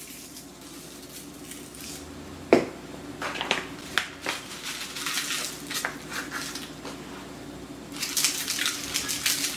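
Pepper mill being handled and ground: scattered clicks and one sharp knock, then a steady gritty grinding near the end, over a low steady hum.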